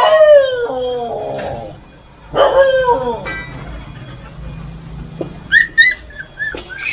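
Belgian Malinois whining: two long whines falling in pitch, the first at the start and the second about two and a half seconds in. Near the end come several short, high squeaks from two-week-old puppies as they are lifted.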